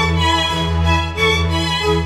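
Background music: a slow bowed-string melody with vibrato over steady held low notes.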